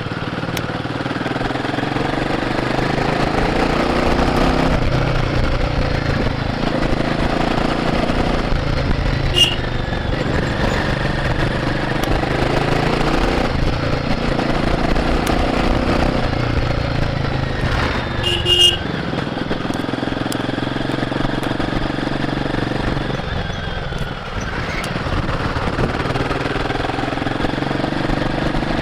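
Royal Enfield Guerrilla 450's single-cylinder engine on its stock exhaust, heard from the rider's seat while riding. The revs climb and drop again several times as the bike accelerates and shifts through the gears. Two brief high-pitched chirps cut in, about a third of the way in and again past the middle.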